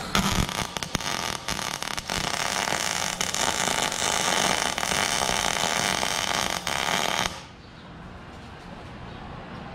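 MIG welding arc crackling steadily as a nut is welded onto the stub of a broken exhaust manifold bolt, so the bolt can be turned out. The arc stops suddenly about seven seconds in.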